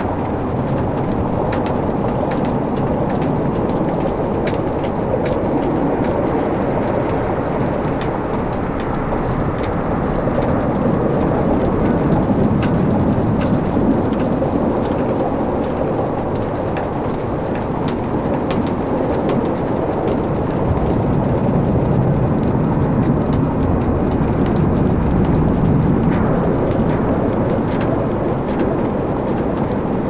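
Wood logs burning in a fireplace: a steady low rumble of flames with frequent sharp crackles and pops scattered throughout.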